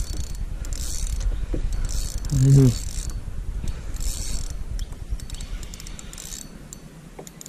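Fishing reel whirring and clicking in short bursts every second or two while a hooked fish is being played on a bent rod, over a low rumble that fades near the end.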